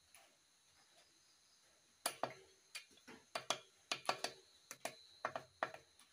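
Sharp metallic clicks and light knocks from parts being handled and seated in a bare Volkswagen engine crankcase half. About a dozen come in a quick, irregular run starting about two seconds in. A faint steady high chirping tone runs underneath.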